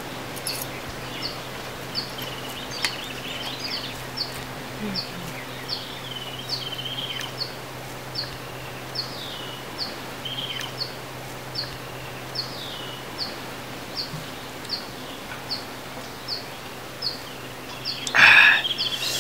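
Birds calling: one bird repeats a short high chirp evenly, about three every two seconds, while other birds give occasional warbling calls. Near the end there is a brief louder scraping or rustling noise.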